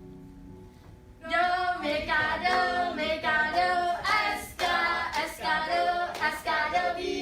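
A high woman's voice starts singing about a second in, one voice carrying a melody in short phrases, over faint low steady tones.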